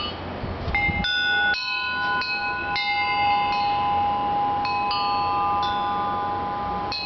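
Homemade wind chime of four used 1-1/4" square steel tubes, cut to lengths meant to give C, E, G and B, struck about ten times at irregular intervals by a swinging cast-iron striker. Each strike leaves ringing metallic tones that overlap and sustain.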